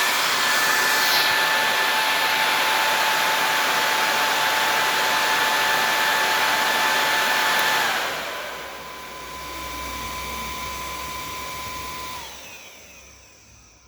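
Small high-speed blower fan running with a steady airy whine, then slowing about eight seconds in and spinning down to a stop near the end.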